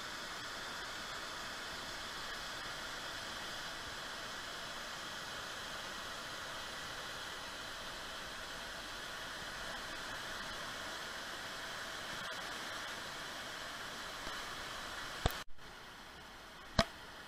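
Rushing water of a shallow rocky river running over rapids and small cascades, a steady hiss. Near the end two sharp clicks, and the water sound drops a little quieter after the first.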